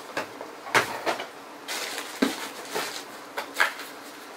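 Rummaging through a cardboard shipping box of boxed pedals: packaging rustles, with several sharp knocks and clunks as the boxes are moved and lifted out.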